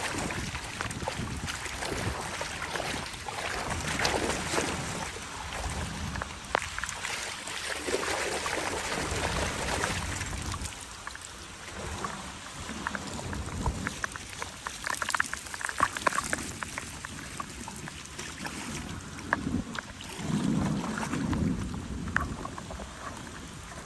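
Floodwater running and trickling toward a storm drain, with scattered clicks, knocks and scrapes, and a few dull thuds near the end.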